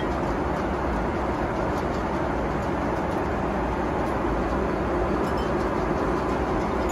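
Steady cabin noise of a Boeing 777-300ER airliner in cruise flight: a low, even rush of engine and airflow noise.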